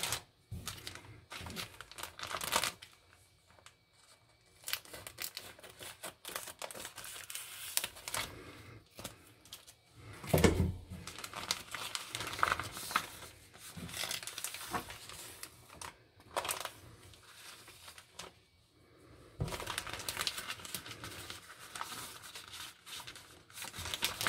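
Clear plastic packaging of a cross stitch kit crinkling and rustling as it is handled and opened, in irregular crackles. A louder bump comes about ten seconds in, and the rustling grows denser over the last few seconds as the contents are pulled out of the sleeve.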